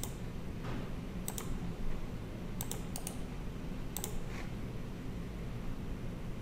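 Computer mouse clicks, a handful of short sharp clicks spread through the moment, several in quick pairs like double-clicks, over a low steady background hum.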